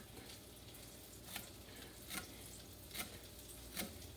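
A knife chopping parsley on a cutting board, four slow chops less than a second apart, over the faint steady sizzle of beef burgers frying in a pan.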